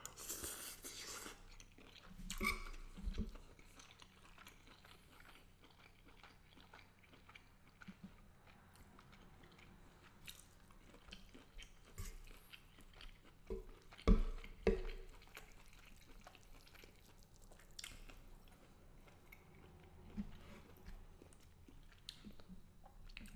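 A man chewing and eating garlic butter shrimp with angel hair pasta, with scattered small clicks and a few louder spells of eating sound, the loudest about fourteen seconds in.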